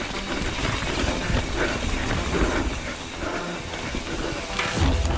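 Mountain bike rolling fast over a rough dirt trail, heard from a chest-mounted camera: tyre noise, chain and frame rattle, and wind hiss on the microphone. A steady low rumble comes in near the end.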